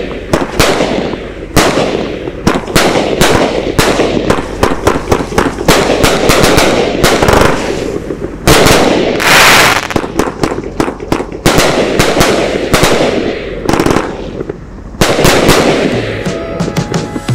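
Red Apple Custom Bomb Box 144-shot XL aerial finale set firing: a rapid, continuous barrage of loud aerial shell breaks, several booms a second.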